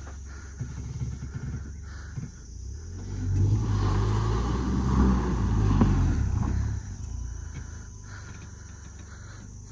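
Car engine running under load, growing much louder about three seconds in and holding for a few seconds before dropping back to a steady low hum.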